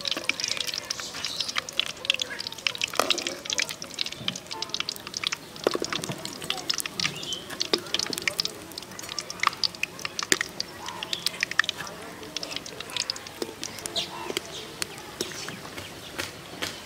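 Battered chilies deep-frying in hot oil in a steel karahi: steady sizzling with many sharp crackles and pops. A slotted steel spoon knocks against the pan now and then, most plainly about three and six seconds in.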